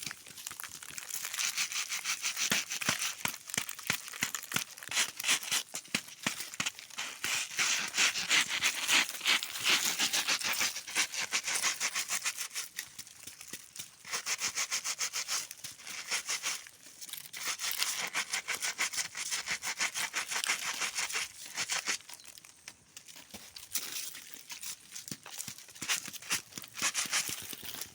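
Dry plant material being rubbed and handled, a crackling rustle of many quick clicks in runs of a few seconds with brief lulls.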